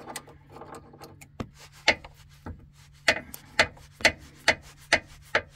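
Sharp mechanical clicks from work on the engine around the newly fitted accessory belt. They come scattered at first, then settle into a steady beat of about two clicks a second from about three seconds in.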